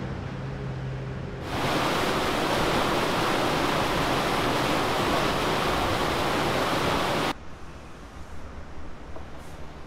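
Churning white water of a river, a loud steady rush that comes in about a second and a half in and cuts off suddenly near the end. Before it there is a low steady hum.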